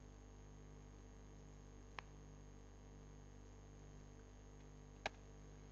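Near silence with a faint steady hum, broken by two soft computer mouse clicks, about two seconds in and again near the end.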